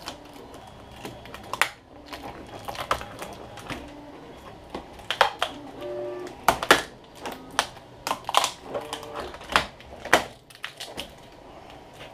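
Plastic casing of a laptop battery pack being pried and pulled apart by hand: irregular sharp clicks and snaps of plastic, loudest and most frequent in the second half.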